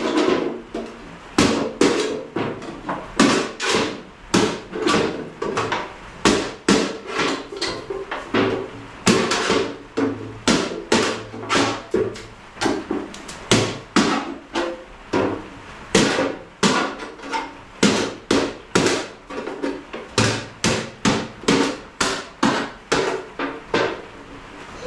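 Repeated sharp strikes, about two a second and unevenly spaced, each with a short ring after it.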